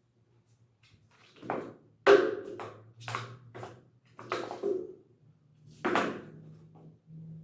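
A cat batting a toy mouse around inside a box: a string of sharp taps and knocks, about eight in some five seconds, over a faint steady hum.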